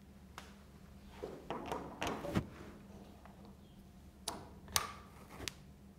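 Small clicks and knocks of a MEX turning tool holder being handled and fitted into a metal setting block: a cluster of knocks, then three sharp clicks near the end.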